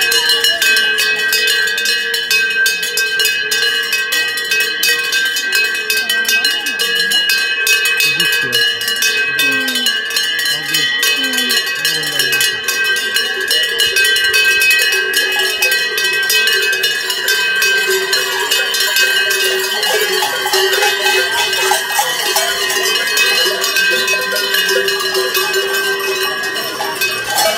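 Many cowbells worn by carnival masqueraders clanging without a break as they walk: a dense metallic jangle with ringing tones.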